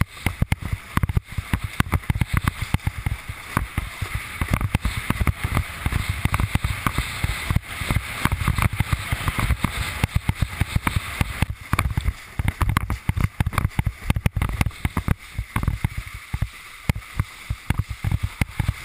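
Windsurf board planing fast over chop: water rushing and spraying along the hull with many quick, irregular thumps, under heavy wind buffeting on the microphone.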